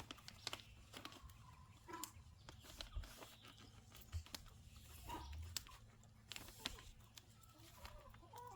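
Chickens clucking quietly while eating dried black soldier fly larvae, with many scattered sharp ticks of beaks pecking.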